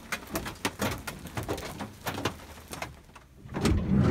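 Irregular drips or drops of rain tapping on the camper van's roof, heard from inside the cab, several sharp ticks a second, just after a hailstorm. They stop about three seconds in, and a louder low rushing noise takes over near the end.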